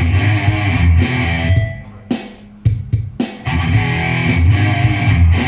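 PRS SE CE24 electric guitar played with high-gain distortion: rhythm riffing in dense distorted chords. The playing eases off and briefly stops about two seconds in, then the riff starts again.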